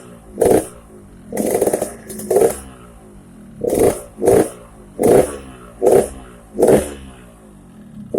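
Yamaha RX-King two-stroke single idling and blipped about eight times in quick, short revs through a gutted ('bobokan') exhaust, giving a raspy, snoring 'ngorok' note. The idle runs between the blips.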